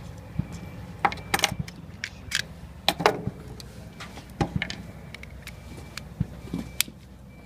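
Scattered metallic clicks and clinks as a Smith & Wesson Victory .22 pistol is taken apart: a T-handle hex key turns the barrel screw and the steel barrel comes off the frame. The loudest clink comes about three seconds in, over a low steady hum.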